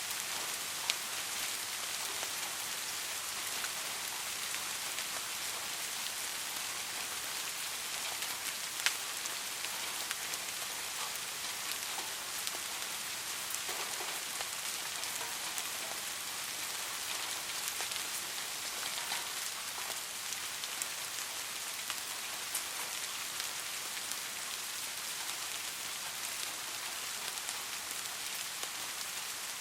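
Soft rain falling steadily, an even hiss with now and then a sharper tick of a single drop, the loudest about a second in and near nine seconds.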